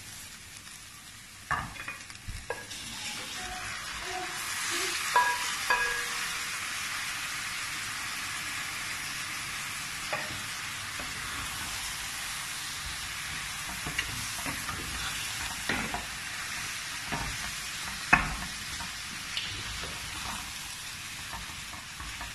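Marinated chicken pieces sizzling as they fry in onion-tomato masala in a stainless steel pan, stirred with a wooden spatula. The sizzle builds over the first few seconds, and the spatula knocks against the pan now and then.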